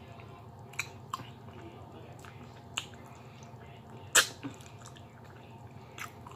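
Close-miked eating sounds: a person chewing and sucking oxtail meat off the bone by hand, with about six short wet smacks of lips and fingers, the loudest about four seconds in.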